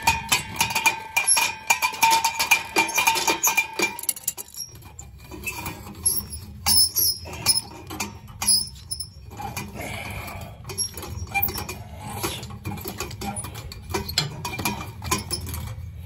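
Metal pliers clicking, knocking and scraping on the boiler's pilot-assembly fitting while a stuck, cross-threaded thermocouple is wrenched loose. A thin steady squeal runs through the first few seconds.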